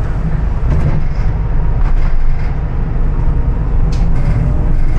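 Bus running, heard from inside the cabin: a steady low engine and road rumble, with a sharp rattle or click about four seconds in.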